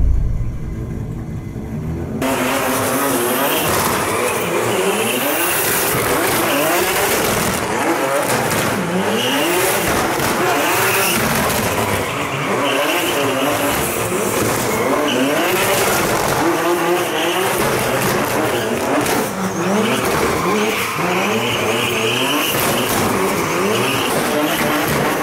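Nissan Silvia S15 drift car drifting: the engine revs up and down over and over while the rear tyres squeal and skid, starting about two seconds in.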